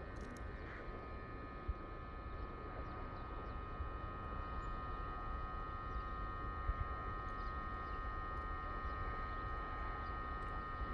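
Outdoor railway-station ambience: a steady low rumble under a constant high hum made of several tones, with a couple of faint clicks.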